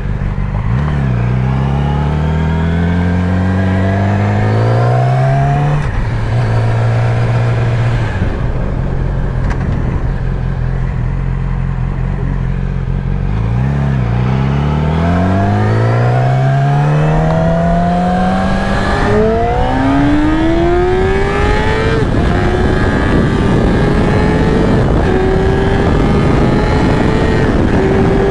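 Motorcycle engine accelerating through the gears. The pitch climbs, drops back at shifts about 6 and 14 seconds in, climbs again, and from about 22 seconds holds a steady high note at cruising speed with wind rush.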